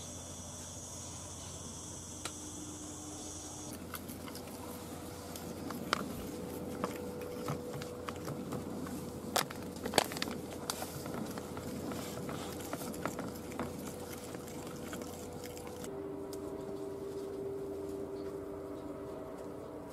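Metal spoon scraping and tapping against the sides of a plastic tub as flour is stirred into olive oil and water, a run of irregular clicks and knocks. For the first few seconds insects buzz steadily at a high pitch, cutting off when the clicking starts.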